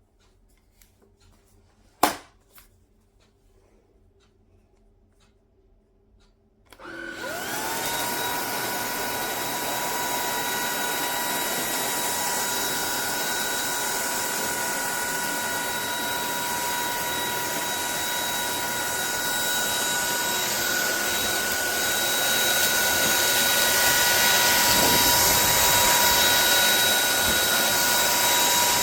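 A sharp click about two seconds in, then a Lubluelu 25.9 V cordless stick vacuum cleaner switches on about seven seconds in. Its motor spins up with a rising whine and runs steadily with a high whine and airflow noise, a little louder near the end.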